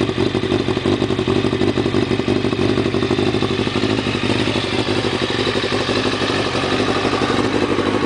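2001 Kawasaki ZX-6E's inline-four engine idling steadily through a Vance & Hines SS2R 4-into-1 chrome full exhaust system, heard close to the muffler outlet.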